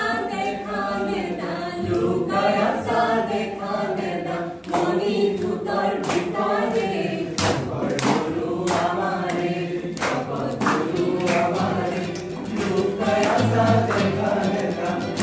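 A small mixed group of voices singing a song together, accompanied by a strummed acoustic guitar.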